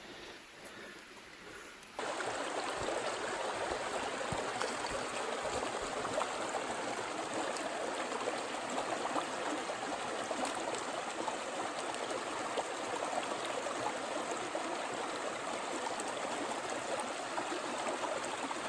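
Small desert stream fed by Darwin Falls, water running steadily over rocks. It comes in suddenly about two seconds in, after a quieter moment.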